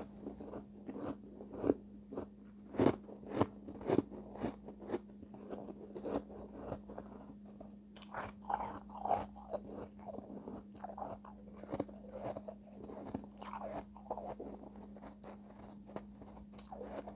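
Close-up crunching and chewing of refrozen shave ice: frequent crisp bites and crunches in the first half, then lighter crackling chews, over a steady low hum.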